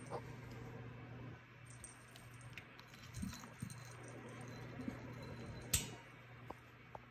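Soft thumps and light clicks and rustles from kittens playing and wrestling on a carpet and bed, over a steady low hum. A sharp click a little before six seconds is the loudest sound.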